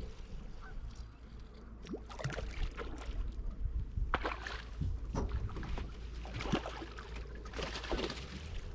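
Water splashing and knocking against a fishing kayak, in about seven short separate splashes, over a steady low wind rumble on the microphone.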